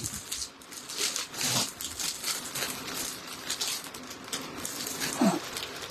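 Irregular rustling and light clicks of garments being handled, with no steady rhythm.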